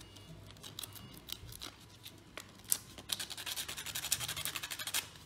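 Sandpaper rubbed by hand over a small sawn piece of wooden clothespin, smoothing its sharp cut edge. A few scattered scratches, then from about three seconds in a run of quick back-and-forth rasping strokes, several a second, stopping shortly before the end.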